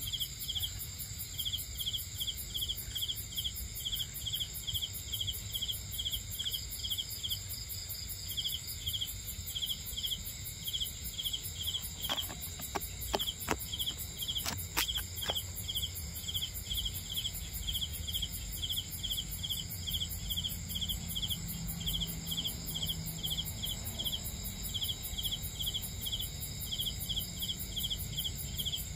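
Night chorus of crickets: a steady high trill under short chirps repeated about four times a second, pausing now and then. A few sharp clicks come about halfway through.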